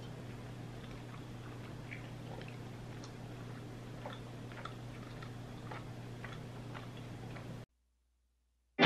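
Quiet room tone with a steady low hum and faint scattered clicks, cutting off abruptly to silence near the end.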